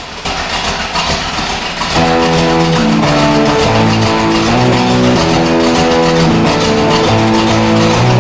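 Guitar music comes in loud about two seconds in and plays on steadily, after a noisy, rising stretch at the start.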